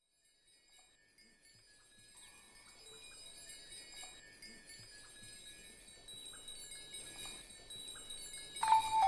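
High tinkling chimes fading in from silence and slowly growing louder; near the end a louder, steadier bell-like ringing sets in.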